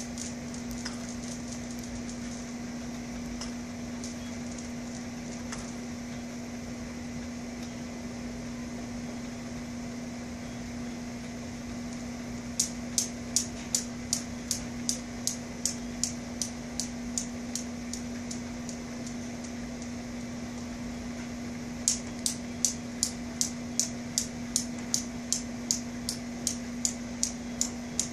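Steel balls of a Newton's cradle clacking in an even rhythm, about three clicks a second, set swinging twice, about halfway through and again near the end, each run fading as the swing dies down. A steady low hum runs underneath.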